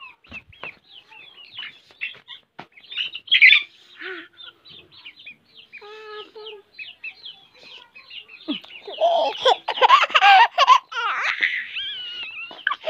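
Domestic chickens clucking and chirping, with scattered short calls and clicks and a louder run of calls from about nine seconds in. The birds are being gathered into their coop for the night.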